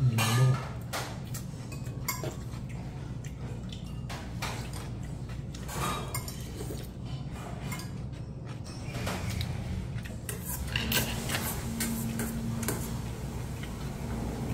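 Metal chopsticks and a spoon clicking against a stainless steel bowl and small side-dish plates, in scattered light clinks, over a steady low hum.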